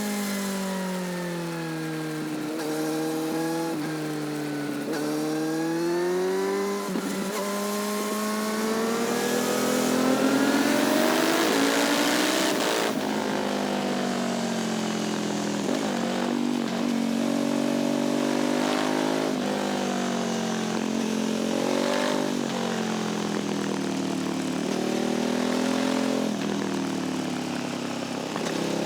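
Sport motorcycle engine and exhaust under way, its pitch rising and falling again and again as the throttle opens and closes and the gears change, loudest about ten to twelve seconds in.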